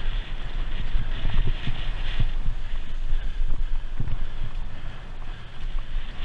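Cyclocross bicycle ridden fast over a bumpy dirt and grass course, heard from a camera mounted on the bike: a steady low rumble and wind noise with irregular knocks and rattles as the wheels hit the bumps.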